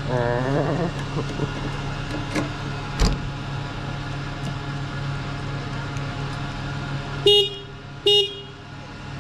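Two short vehicle-horn toots about a second apart near the end, over a steady low hum, with a single sharp click about three seconds in.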